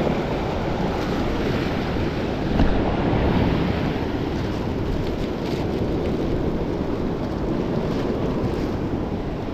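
Wind buffeting the microphone over the wash of sea surf, a steady rushing noise, with one short knock about two and a half seconds in.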